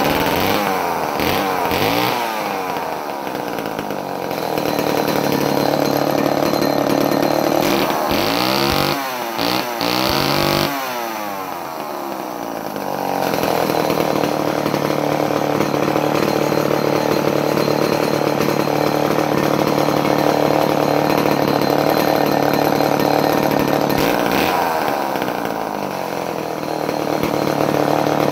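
Vintage Montgomery Ward Powr Kraft Professional 4.0 two-stroke chainsaw, made by Remington, running after a choked start. It is revved up and down a few times at the start, again about a third of the way through, and near the end, and runs steadily in between, running well.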